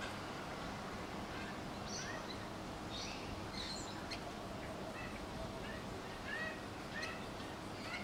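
Scattered short bird chirps and calls, a few of them brief rising notes, over a steady background hiss.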